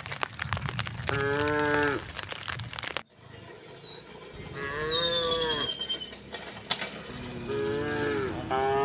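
Cattle mooing: four long, low moos one after another, the last starting near the end. Clicking and rumbling fill the first three seconds until an abrupt cut, after which a few high chirps and a falling whistle sound between the moos.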